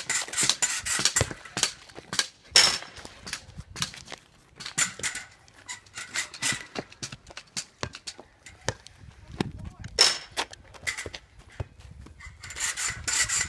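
Basketball bouncing: sharp, irregular thuds, the loudest about two and a half seconds in and again at ten seconds, with indistinct voices in between.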